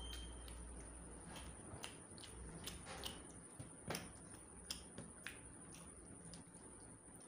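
Faint wet squishes and small clicks of a bare hand mashing and mixing rice with chicken curry on a plate, with the sharpest click about four seconds in.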